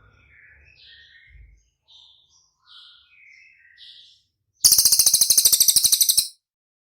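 Cililin songbird calling: a string of faint short chirps, then about four and a half seconds in a loud, rapid harsh rattle of about a dozen strokes a second that lasts about a second and a half.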